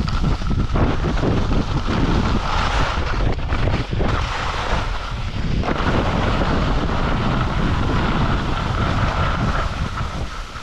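Wind buffeting an action camera's microphone while skiing downhill, with skis scraping and hissing over firm, chopped-up groomed snow.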